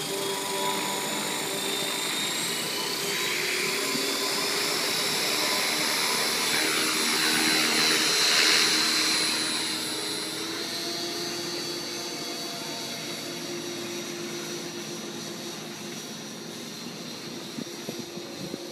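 Align T-Rex 500 Pro electric RC helicopter, its motor and rotor whine rising in pitch as it spools up and lifts off. It is loudest about eight or nine seconds in, then grows quieter as the helicopter flies up and away.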